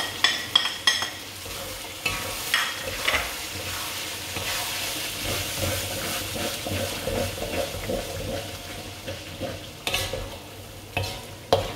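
Spice paste sizzling as it fries in oil in a pan, with a utensil stirring it and scraping the pan in several sharp strokes; ground coriander and cumin powder have just been added to the paste.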